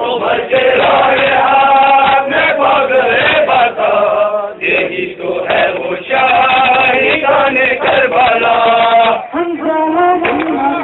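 Men's voices chanting an Urdu noha (Shia mourning lament) in unison, with a short break about four and a half seconds in. Rhythmic chest-beating (matam) slaps run under the chant.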